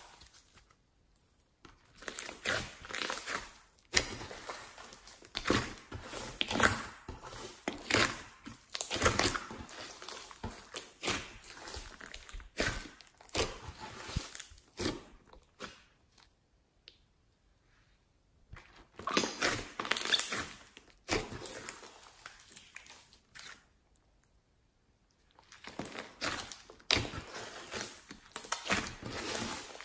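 Hands squeezing, stretching and folding a large mass of glossy slime mixed with foam beads: wet squelches and a rapid run of small clicks and pops in irregular bursts, with a few short pauses.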